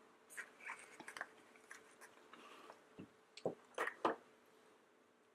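Hands opening a confetti-filled surprise egg: scattered small clicks and crinkles, with a few louder clicks about three to four seconds in.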